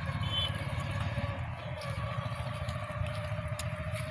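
An engine running steadily, a low, finely pulsing rumble with a faint steady hum above it.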